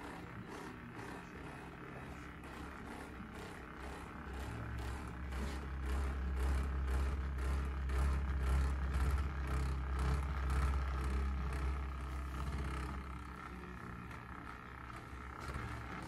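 Handheld percussion massage gun running against a person's back. It gives a steady low buzzing hum that grows louder for several seconds in the middle, as it is pressed and moved over the body.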